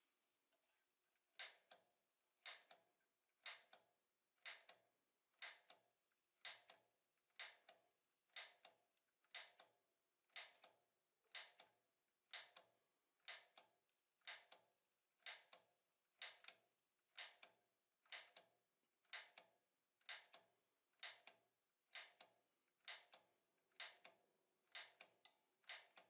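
Faint, sharp clicks about once a second from a gas water heater's push-button piezo igniter being pressed over and over to light the pilot. Two come closer together near the end.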